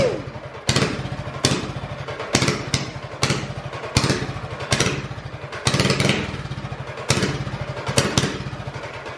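Small single-cylinder engine on a barstool racer catching and sputtering in short bursts, a sharp start about once a second, each fading before the next, as it is being started and does not yet run smoothly.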